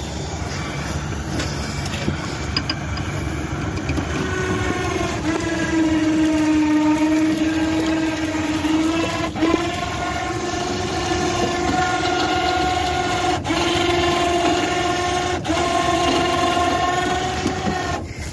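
Winch reeling in its cable under load, dragging a dead riding lawnmower with flat tyres toward loading ramps: a steady whine that sets in about four seconds in, rises in pitch after a click about halfway through, and falters briefly twice near the end.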